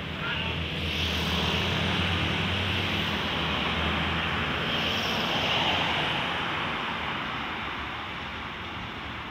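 Steady engine drone with a low hum and a rushing noise, swelling about a second in and slowly fading over the last few seconds.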